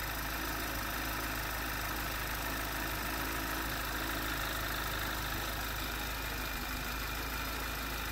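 Audi TT 2.0 TFSI turbocharged four-cylinder engine idling steadily, its vacuum pump and high-pressure fuel pump roller tappet newly replaced; the pump noise can still be heard but is not very loud at all.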